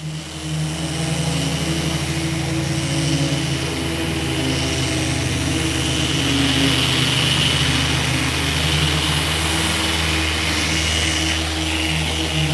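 Electric sander with a dust-extraction hose running steadily against the bare wooden hull of a kayak: a motor hum under a hissing whir as the pad sands the wood.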